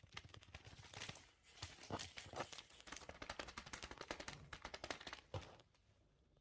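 Faint, irregular taps, clicks and rustling, several a second, that thin out near the end.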